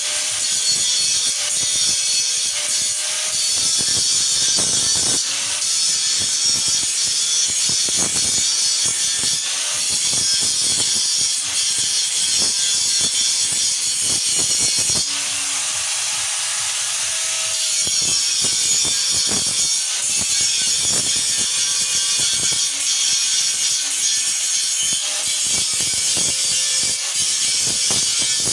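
Electric angle grinder running under load, its disc grinding the joints of a steel tubular window grill: a steady motor whine under a harsh, gritty scraping of the disc on metal. About halfway through the scraping eases for a few seconds while the motor keeps running.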